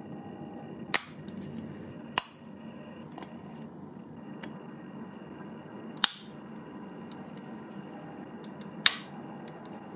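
Four sharp clicks of small plastic model-car parts being pressed and snapped into the interior tub, spaced a few seconds apart, over a steady low background noise.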